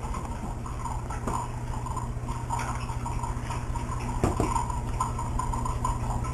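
A table knife scooping and spreading jelly, with a few light clinks, over a steady low hum.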